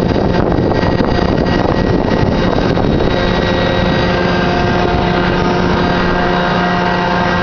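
Implecor M 1090 silage bagger running with chopped forage in its hopper: a loud, steady machine drone with a rougher, rattling rush that eases about three seconds in, leaving a steadier hum.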